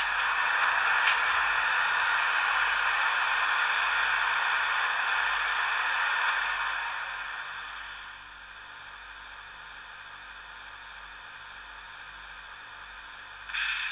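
Märklin BR 150 H0 model locomotive's sound decoder playing electric-locomotive operating sounds through its small speaker: a hissy running noise with a thin high squeal, the brake squeal, from about two and a half to four seconds in. The noise fades to a quieter steady hiss by about eight seconds and jumps back up near the end.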